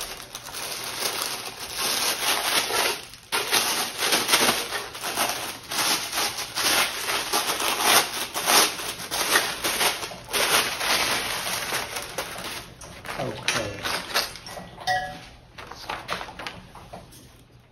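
Plastic wrapping crinkling and rustling as it is pulled off the end table's legs, a fast irregular stream of crackles that thins out near the end.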